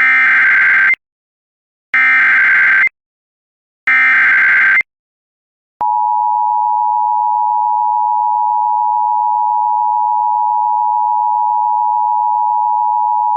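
Emergency Alert System SAME data header: three loud, buzzy digital bursts of about a second each, a second apart. After a second's pause, the two-tone EAS attention signal sounds steadily for about eight seconds, marking the start of a new alert.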